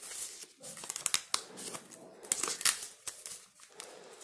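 Thin plastic protective film being peeled and crinkled off a new smartphone: a run of crackling rustles and small clicks.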